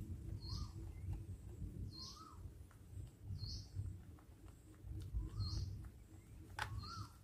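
A bird repeating a short two-part call about every one and a half seconds, a high chirp paired with a lower rising-and-falling note. Underneath are a low rumble and scattered faint clicks.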